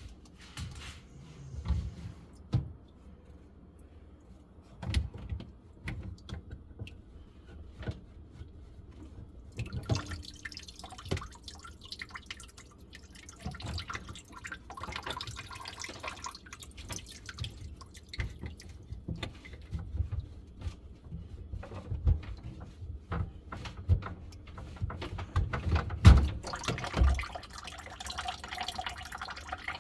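Water splashing and dripping in a sink with a blocked drain, with scattered knocks and thumps. From about ten seconds in, a steadier rush of water grows, loudest near the end.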